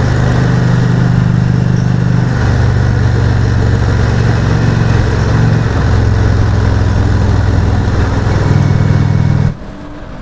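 Motorcycle engine running steadily at highway speed, with wind and road noise. The engine note shifts slightly about two seconds in, and the level drops suddenly near the end.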